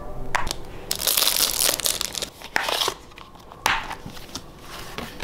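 Plastic shrink-wrap packaging crinkling and tearing as a boxed crystal set is unwrapped, loudest in the first couple of seconds, followed by lighter handling clicks of the plastic case inside, with one sharper click partway through.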